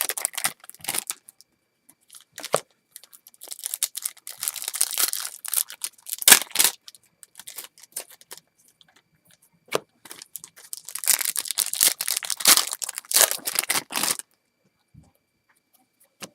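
Foil wrapper of a baseball card pack being torn open and crinkled, with the cards handled. It comes in two long spells of crackling, with sharp clicks and rustles between them.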